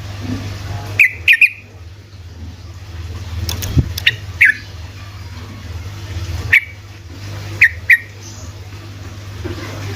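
Yellow-vented bulbul (trucuk) giving short, sharp chirping notes in small clusters with gaps between them, over a steady low hum.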